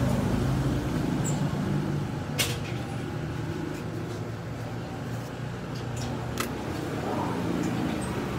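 Steady low background rumble, with two short sharp clicks about four seconds apart.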